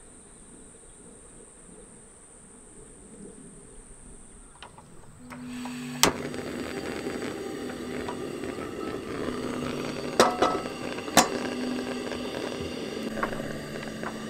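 Crickets trill steadily at first. From about five seconds in, a single-burner camping gas stove runs with a steady hiss, and there are three sharp metallic knocks, the cast iron skillet and utensils against the stove.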